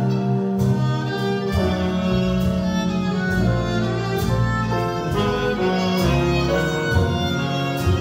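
A small jazz band playing live, with a violin carrying the melody over piano, upright bass and drums with cymbal strokes.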